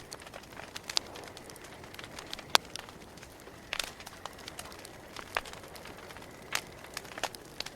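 Campfire crackling: scattered sharp pops and snaps of burning wood over a faint steady hiss, the loudest pop about two and a half seconds in.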